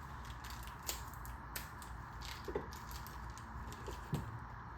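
Scattered light metallic clicks and taps of small hardware being handled, such as brake-line banjo bolts and their crush washers, over a steady background hum.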